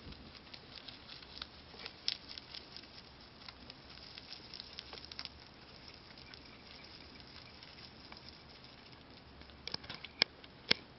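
Holland lop rabbit chewing a fresh shiso (perilla) leaf: a rapid run of small crisp crunches, thick in the first half and fading away after. A few sharp clicks come near the end.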